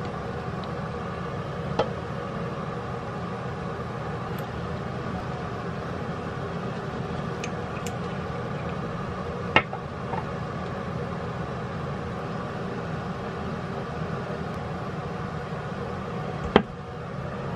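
A steady mechanical hum fills the room, with three sharp plastic clicks from a small dropper bottle and a toothpaste tube being opened and handled; the loudest click comes near the end.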